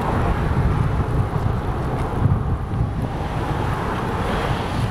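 Wind buffeting the microphone while cycling along a roadside, over the hiss of cars passing close by. Tyre noise swells near the end as a car overtakes.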